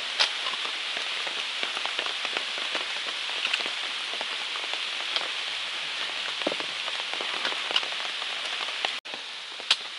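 Steady rain falling, with many small, sharp drop hits. It cuts out briefly about nine seconds in and comes back a little quieter.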